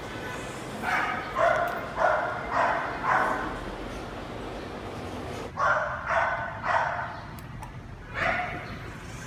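A dog barking in three runs: five barks, then three, then one.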